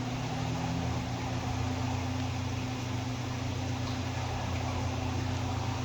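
Steady low electrical hum with an even hiss beneath it, unchanging throughout.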